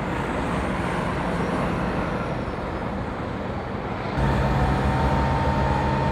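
Heavy vehicle engines idling, a steady rumble; at about four seconds it turns louder, with a steady low engine hum and a thin high whine.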